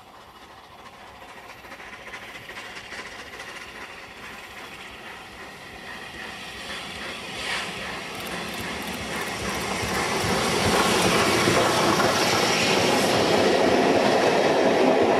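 Steam locomotive 34067 Tangmere, an unrebuilt Bulleid Battle of Britain class Pacific, with its support coach, approaching and running through a station at speed. The sound grows steadily louder and is loudest in the last five seconds as the engine passes close, with wheels clattering over the rail joints.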